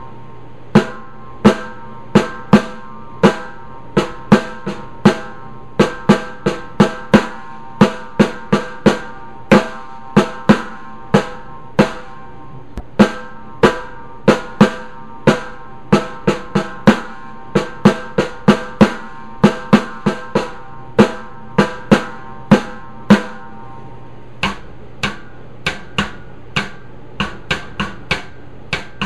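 Drums struck with sticks in a slow, unevenly spaced pattern of about two sharp, ringing strokes a second. The two hands play the parts of a seven-over-five polyrhythm, some strokes landing together and some alone. The strokes pause briefly near the end, then go on more softly.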